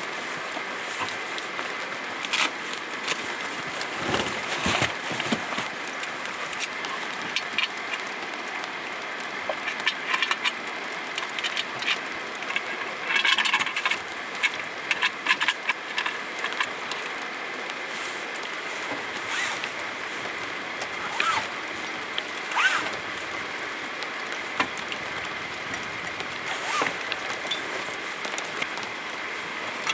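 Rain falling steadily, with scattered louder drop hits and short clicks, a busier run of taps about halfway through.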